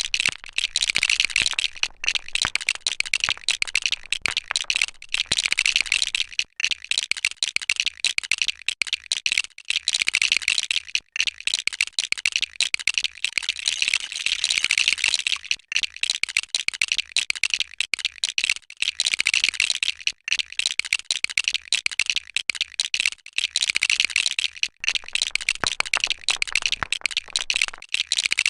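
Loose plastic LEGO bricks clattering and clicking as hands sift through a pile of pieces and snap them together: a rapid, constant rattle of small plastic clicks with a few brief pauses.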